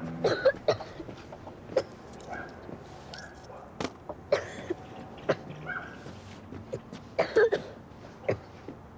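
A child coughing in a string of short bursts, with coins clinking as they drop into an open guitar case.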